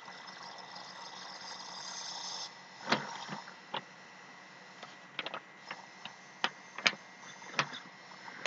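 A run of about ten sharp, irregularly spaced clicks and knocks over a steady hiss with a faint high tone.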